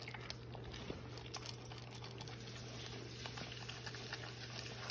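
French bulldog puppy eating dry kibble from a stainless steel bowl: quick, irregular crunching and clicking as the kibble is chewed and knocks against the metal bowl.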